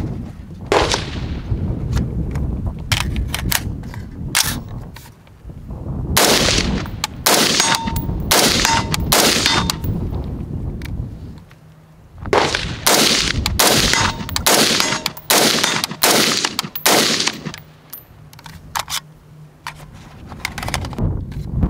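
H&R M16A1 rifle in 5.56 mm firing single shots in quick strings, about two to three a second, with short pauses between the strings.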